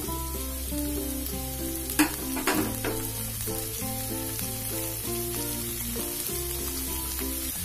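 Chopped onion, capsicum, carrot and sweet corn sizzling in hot oil in a kadai over a high flame, with a wooden spatula knocking against the pan a few times about two seconds in. Background music with a melody and bass line plays over the sizzle.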